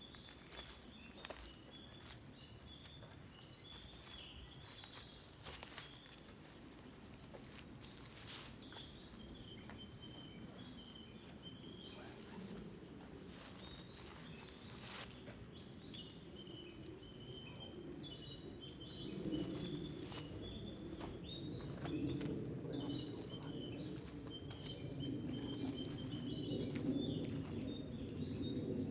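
Small bird chirping over and over in short high phrases, with scattered clicks and rustling, and a low rushing noise growing louder in the second half.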